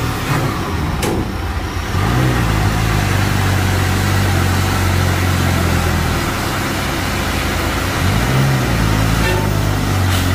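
Diesel engine of a container tractor-trailer labouring at high revs under heavy load while its drive wheels spin and smoke on the steep, broken road surface. The engine note rises about two seconds in and again near the end.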